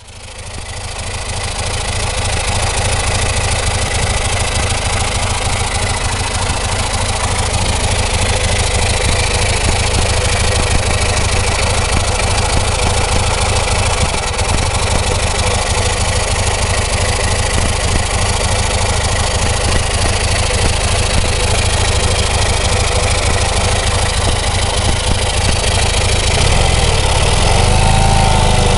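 1978 Fiat 126 650's air-cooled two-cylinder engine idling steadily with its rocker cover off, so the rocker arms and valves are heard working in the open. The sound fades in at the start.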